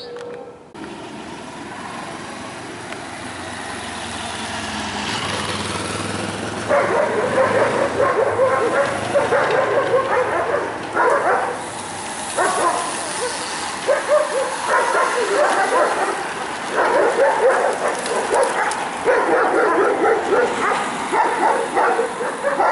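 A dog barking loudly and repeatedly in quick runs of barks, starting about seven seconds in. Beneath it, the rising whir of a bunch of racing bicycles and an escort car going by.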